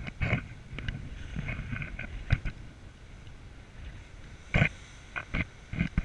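Wind buffeting an open-air camera microphone in irregular gusts, several sharp bursts among them (the loudest about two and a half seconds in and again after four and a half seconds), over a low steady rumble.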